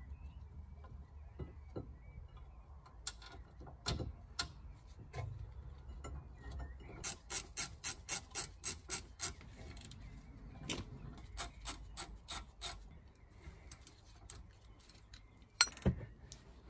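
Ratchet spanner clicking in quick regular runs, about four clicks a second, as the brake calliper carrier bolts are wound in. A few single metal knocks, the loudest near the end.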